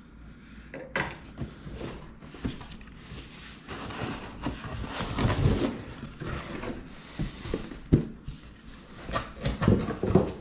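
Large cardboard box being opened by hand: the lid and flaps scrape and rustle, with scattered knocks and clicks as the cardboard is handled.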